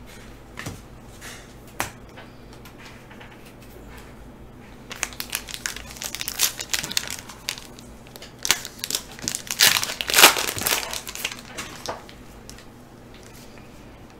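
Foil wrapper of a Prizm football card pack being torn open and crinkled by hand, after a few light clicks of cards being handled. The crinkling starts about five seconds in, is loudest around ten seconds, and dies down near the end.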